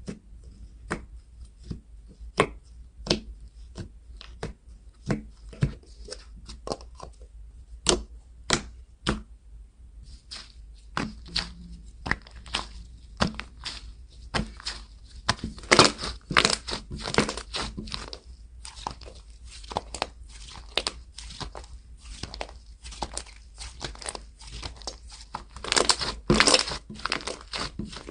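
Slime being pressed and stretched by hand, giving irregular sticky pops and clicks, with two longer spells of dense crackling.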